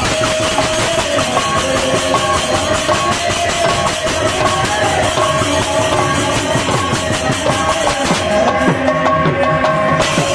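Kirtan music: a large two-headed barrel drum played in fast, dense strokes with hand cymbals, over a steady held melodic tone.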